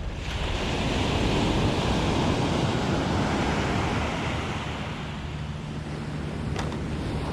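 Ocean surf breaking and washing up the beach: a rushing noise that swells over the first second or two, holds, and fades after about five seconds.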